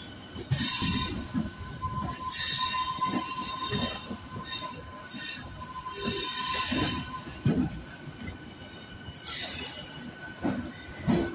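MEMU electric train's wheels squealing against the rails as it rounds a tight curve, the high-pitched squeal coming and going over the rumble of the running train.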